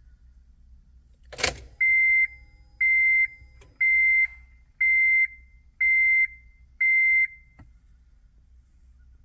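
A sharp click, which matches the ignition key being turned off, followed by six evenly spaced electronic beeps, one pitch, about one a second, which then stop.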